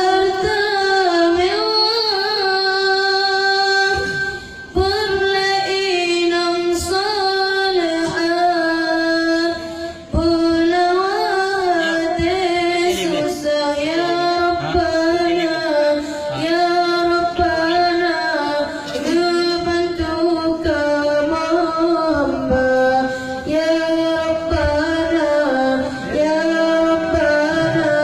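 A high solo voice singing unaccompanied in a long, ornamented melodic line, pausing briefly for breath about five and ten seconds in.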